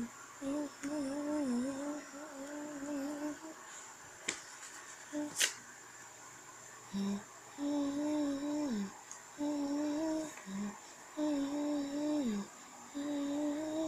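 A person humming a tune in long held, slightly wavering notes, in several phrases with a pause in the middle. Two sharp clicks fall in the pause about four and five and a half seconds in.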